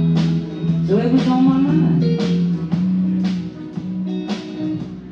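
Live band playing the song's instrumental intro: electric or acoustic guitar over a steady beat of sharp regular hits, with bending lead lines.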